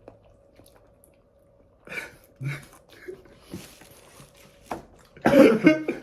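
A few short, scattered mouth noises, then a loud cough about five seconds in.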